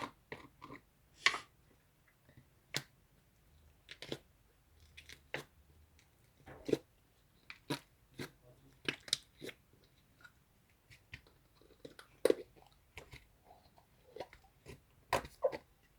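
Irregular short crunches and clicks, about one every second, close to the microphone.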